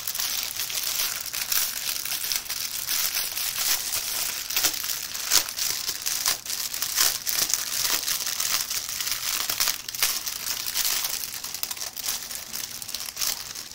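Small plastic bags of diamond-painting drills crinkling continuously as they are handled, with many small crackles.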